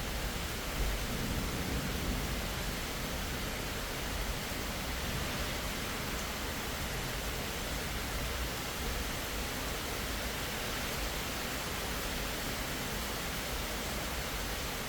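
Steady hiss of rain, with a low rumble of distant thunder in the first couple of seconds that dies away.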